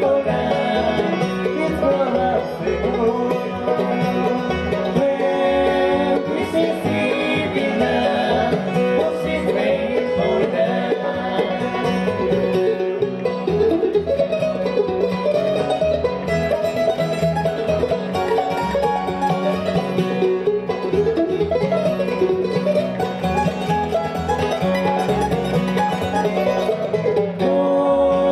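Bluegrass band playing live: fiddle, banjo, acoustic guitar and upright bass together in a steady, full-band passage.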